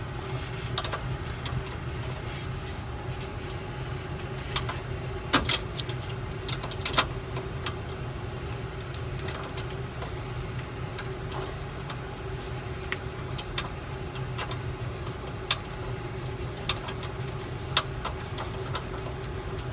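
Metal hand tools clicking and clanking a few separate times against a steady low mechanical hum. The clicks come from a ratcheting line wrench being worked on the air-line fittings of a bus's front air suspension.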